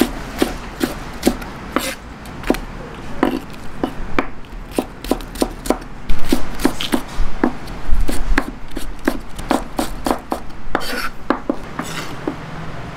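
Chef's knife chopping vegetable stalks on a wooden cutting board: a quick, uneven run of sharp knocks.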